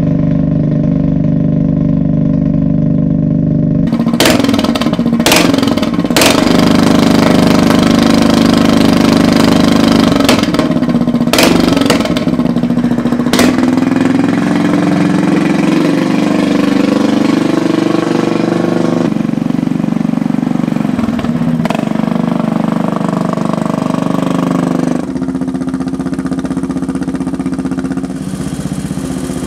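Riding lawn tractor's engine running through a homemade dual exhaust with four tailpipe tips, just after its first start. The engine pitch rises and wavers as it is revved around the middle, with a few sharp cracks in the first half.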